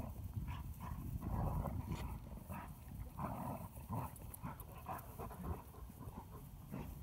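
Dogs panting and scuffling in dry grass as they pull on a tug rope in play.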